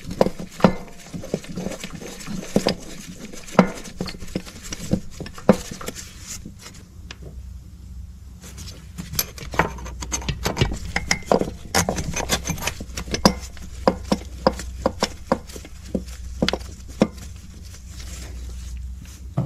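Irregular metallic clinks and taps of hand tools and bolts as the mounting bolts of a new AC compressor are fitted by hand.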